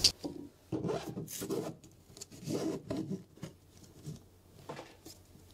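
Flexible TPU gasket rubbing and scraping against a 3D-printed plastic part as it is worked into place, in irregular bursts.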